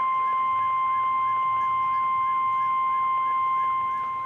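NOAA Weather Radio 1050 Hz warning alarm tone, sent as a weekly test: one loud, steady single-pitch tone held throughout, with a faint warble repeating underneath about three times a second.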